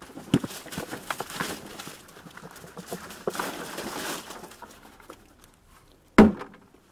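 Vegetable scraps, lettuce, celery and other kitchen waste, sliding and tumbling out of a plastic 5-gallon bucket onto a compost pile: an uneven rustling with many small clicks for about five seconds. A brief, loud thump comes near the end.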